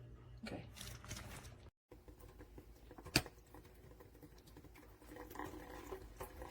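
Faint handling noises: soft rustling and light tapping, with one sharp click about three seconds in.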